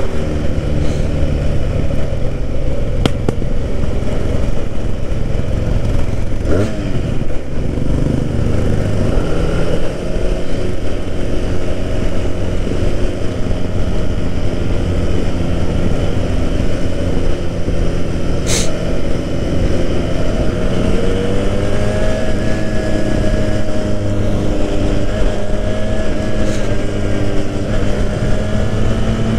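Benelli 302R's parallel-twin engine running on the move, its pitch falling about six to seven seconds in and climbing again after about twenty seconds, over steady wind rush on the microphone. A single sharp click a little past halfway.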